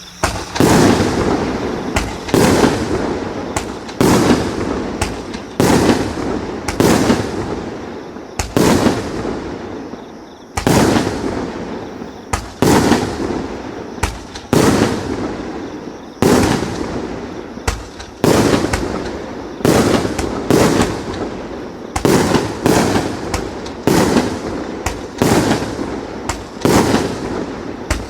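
A 100-shot, 1-inch-calibre fireworks cake firing: a steady run of sharp shots, about one or two a second, each trailing off before the next, with a short pause about ten seconds in.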